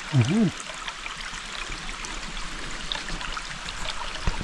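Stream water running steadily, an even rushing of water.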